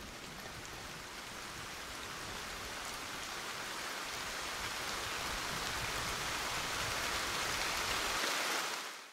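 Rain falling steadily, growing gradually louder and then fading away in the last second.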